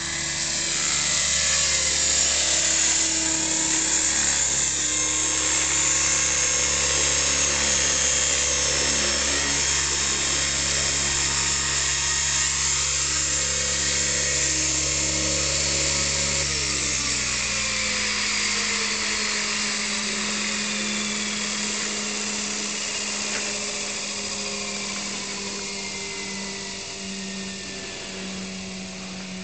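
Align T-Rex 600 radio-controlled helicopter running at full rotor speed, a steady high-pitched whine, then spooling down on the pad after landing: from a little past halfway the pitch falls and the sound fades as the rotor slows.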